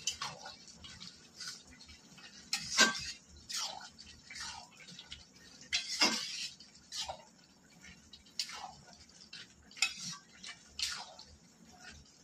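Flat metal spatula scraping and clinking against an aluminium kadai as a thick vegetable curry is stirred, in uneven strokes about once a second, the loudest about three seconds in and at six seconds.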